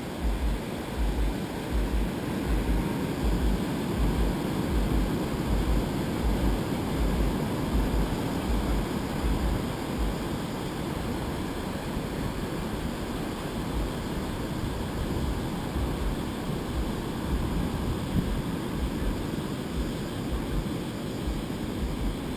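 Surf breaking on a sandy beach, heard through wind buffeting the camera's microphone in irregular low gusts, heaviest in the first half.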